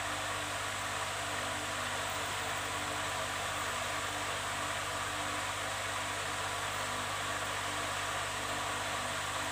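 Steady, even background hiss with a low hum underneath, unchanging throughout.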